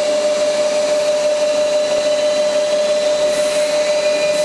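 Live-tool milling motor on the turret of a 2004 Haas SL-30TBB CNC lathe running steadily at 1,000 RPM: a steady mid-pitched tone over a hiss.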